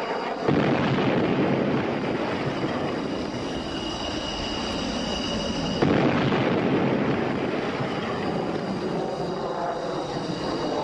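Jet fighter engine noise: a steady rushing jet roar with a thin high whine over it. It jumps louder suddenly twice, about half a second in and again a little before the middle.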